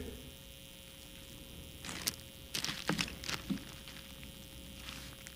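A few faint clicks and rustles about two to three and a half seconds in, over a steady low electrical hum.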